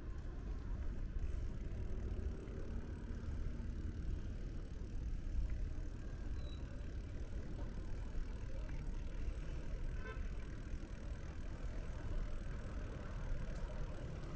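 Steady low rumble of vehicle traffic.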